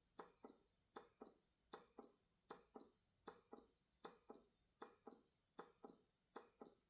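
Elvie wearable breast pump running in expression mode on its highest suction setting, very faint: a soft double pulse, one stronger then one weaker, repeating about every three-quarters of a second as the motor cycles its suction.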